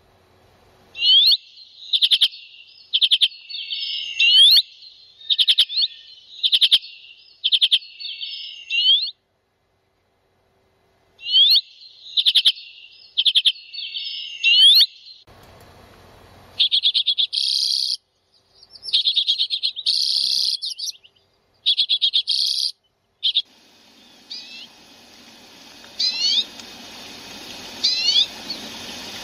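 Common redpolls calling: bursts of short, dry, rapid chattering trills, repeated many times with a pause about ten seconds in. Near the end come rising whistled calls over a faint hiss.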